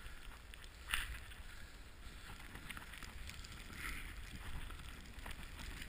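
Snowboard gliding and turning through deep powder snow: soft swishing of snow, a brief louder rush about a second in, over a low wind rumble on the microphone.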